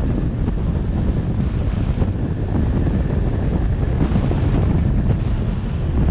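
Wind buffeting the microphone of a camera on a moving vehicle: a steady low rumble with road noise mixed in, with no change in pace.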